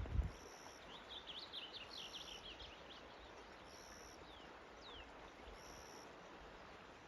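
A small songbird calling faintly: a quick run of high chirps, then two single high down-slurred notes. A brief low bump of handling or wind comes right at the start.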